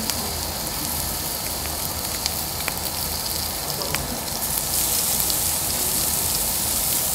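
Pork neck sizzling on a Korean barbecue grill: a steady high hiss with scattered pops and crackles of spattering fat, growing louder about four and a half seconds in.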